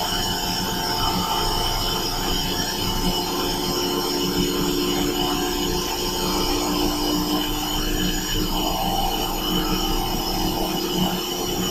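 Shinko steam turbine being run up in speed on steam let in through its bypass valve: a steady rush of steam and machinery noise with several steady hums, a couple of them shifting in pitch in the second half.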